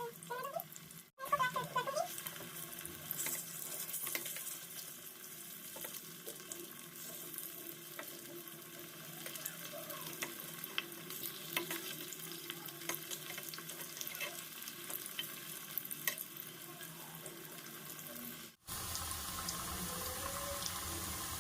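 Soybean chunks frying in hot oil in a pan, sizzling and crackling as they are stirred. The sizzle breaks off abruptly twice, about a second in and near the end, and is louder after the second break.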